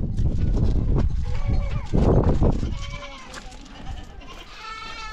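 Goats bleating: a few faint calls under a loud low rumbling noise for the first three seconds, then a loud, wavering bleat about four and a half seconds in.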